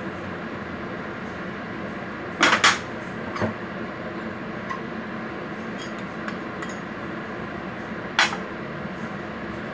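A metal utensil clinking against a clay pot: two sharp clinks in quick succession about two and a half seconds in, a fainter one a second later, and another near the end, over a steady low hum.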